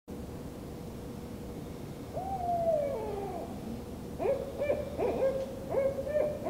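Owl-like hooting: one long call that falls in pitch about two seconds in, then a quick run of short overlapping hoots from about four seconds in.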